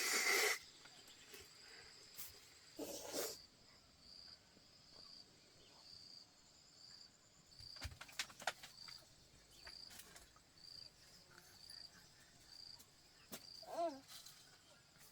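A cricket chirping steadily in a high, even pulse, about two chirps a second, with a few faint clicks and knocks.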